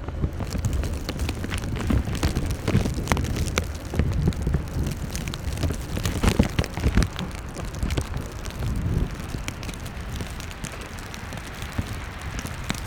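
Blizzard wind buffeting the microphone: a gusty low rumble that swells and dips, with irregular ticks and clicks over it.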